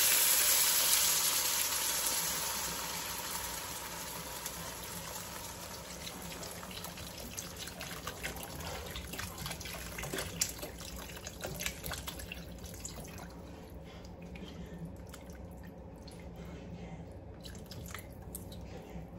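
Water poured into a hot frying pan of browned chicken and fish balls: a loud sizzle that dies down over the first few seconds as the pan cools, then a quieter steady hiss of the liquid heating. Around halfway through, a spatula stirs and clicks against the pan.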